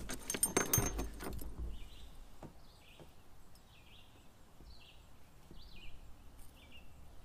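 A bird singing faintly, a run of short chirping notes repeated about every half second to a second. A few clicks and knocks sound in the first second and a half.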